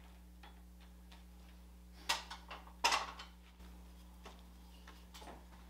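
Metal clicks and knocks of a lathe chuck being loosened with its chuck key and the turned wooden piece being lifted out of the jaws, with two sharper knocks about two and three seconds in.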